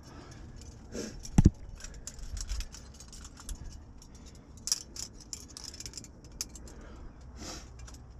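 Metal climbing gear, carabiners and quickdraws on a harness, clinking and jangling in scattered small clicks, with one sharp knock about a second and a half in.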